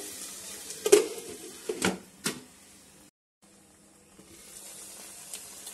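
Glass pan lid clinking against the rim of a pan three times as it is set down, over a faint sizzle of onions and tomatoes sautéing underneath; another light clink near the end.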